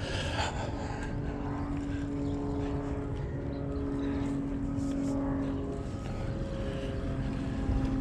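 An engine droning steadily at a low pitch that shifts slightly now and then.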